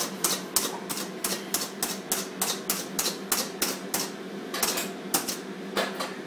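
Slap Chop plunger-style food chopper being slapped down again and again, its plastic plunger and spring-loaded blades clacking in a quick steady rhythm of about three strikes a second.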